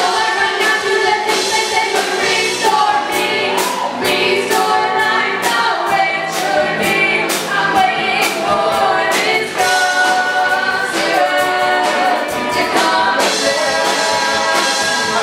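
A live amateur rock band playing, with drum and cymbal hits keeping a steady beat and several voices singing together over the instruments.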